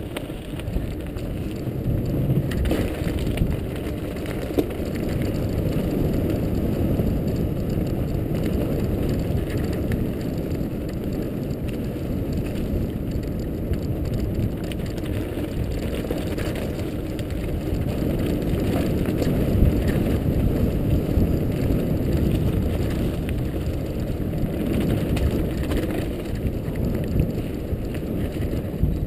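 Mountain bike rolling fast down a gravel trail, heard through a GoPro HD Hero 2 camera: a steady low rumble of tyres and rushing air, with scattered small clicks and rattles as the bike runs over stones.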